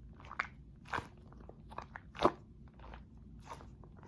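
Hands squeezing a giant NeeDoh squishy stress ball, giving a few sharp crunchy crackles, the loudest a little past two seconds in.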